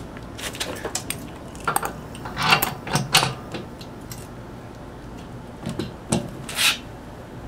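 Wheel axle, washer and bushing scraping and clinking as the axle is pushed through a generator's transport wheel into its frame bracket. The sounds come as a few short, separate rattles, the loudest about two and a half and three seconds in, and one more near the end.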